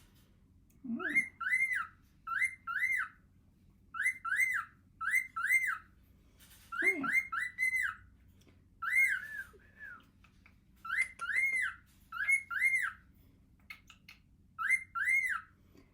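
Cockatiel chirping: short, arched whistled notes in quick groups of two or three, repeated every second or two with short pauses between.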